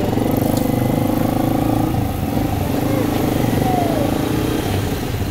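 A motorcycle engine running steadily at low speed close by, with a few brief cries over it.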